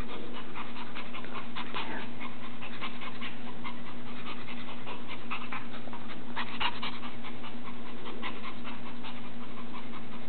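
Puppy panting quickly and steadily, in a fast run of short breaths.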